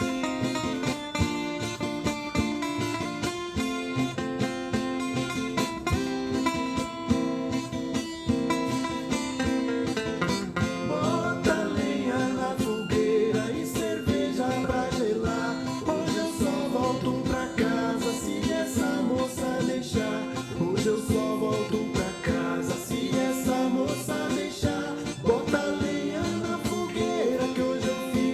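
A song playing: an instrumental opening, then a voice comes in singing about ten seconds in.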